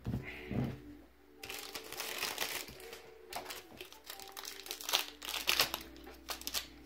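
Foil wrapper of a Pokémon card booster pack crinkling and crackling as it is handled and worked open, in a busy string of bursts starting about a second and a half in.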